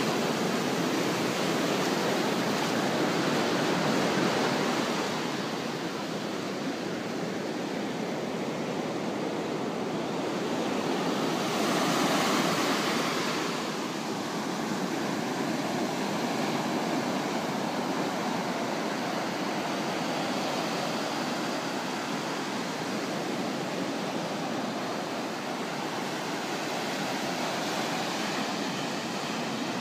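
Ocean surf on a sandy beach: waves breaking and foam washing up over the sand as a continuous rushing noise. It swells in the first few seconds and again about twelve seconds in.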